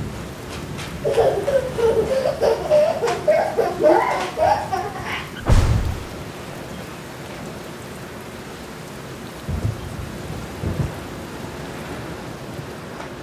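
Steady rain with a sharp thunder clap about five and a half seconds in, the loudest moment, and two fainter low rumbles later. A person's voice can be heard over the rain in the first few seconds.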